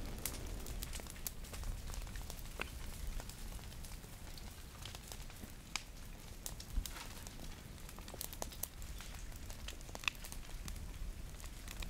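Brush burning where the lava flow has reached it, giving irregular sharp crackles and pops over a low background rumble.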